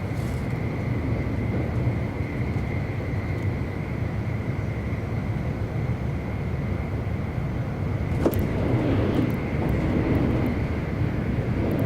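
E259 series Narita Express electric train running at speed, heard from on board: a steady low rumble of wheels on rail with a thin steady whine. A sharp click about eight seconds in, after which the rumble grows louder.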